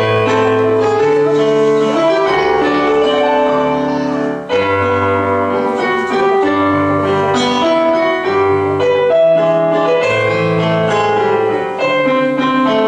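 Piano music for a ballet class port de bras exercise, starting suddenly: a slow melody over held chords with a bass note changing about every second.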